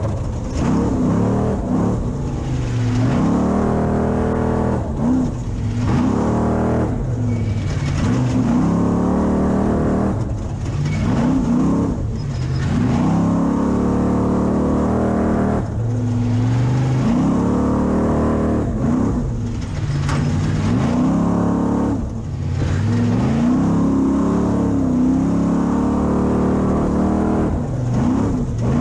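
Class 6100 spec trophy truck's engine under race throttle, revving up and easing off again and again, its pitch climbing and falling every couple of seconds.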